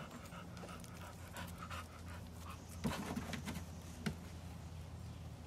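A bulldog panting in quick, even breaths, clearest in the first couple of seconds, over a steady low hum, with a couple of light knocks near the middle.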